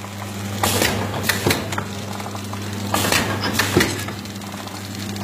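Automatic vertical pouch-packing machine for masala powder running: a steady electrical hum with sharp mechanical clacks that come in pairs, a pair a little over two seconds apart.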